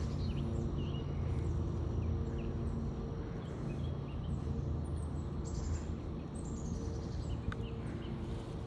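Birds chirping and calling, with short high chirps throughout and a couple of rapid high trills around the middle, over a steady low rumble and hum.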